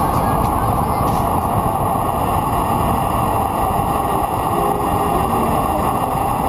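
Wind rushing over the microphone of a bike-mounted camera during a fast road-bike descent: a steady, loud rush with no breaks.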